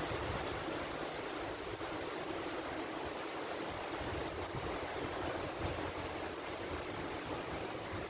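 Storm-force wind rushing through the tree canopy as a steady roar of noise, with an uneven low rumble underneath.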